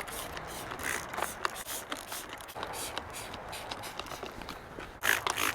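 Repeated scrubbing strokes on a vinyl bench pad, working Bar Keepers Friend cleanser into paint stains, a few strokes a second with a louder run near the end.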